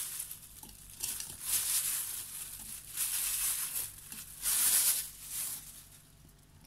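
Thin plastic freezer bag crinkling and rustling in several bursts as frozen orange and lemon pieces are taken out of it; the crinkling stops near the end.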